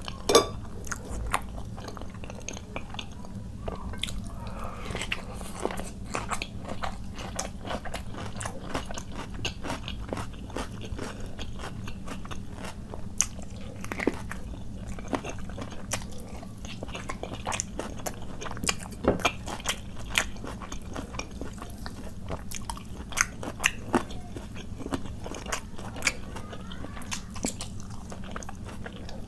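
Close-miked chewing of hand-fed mouthfuls of khichuri rice mixed with raw cucumber and carrot salad: wet chewing with many short, sharp crunches. A low steady hum lies underneath.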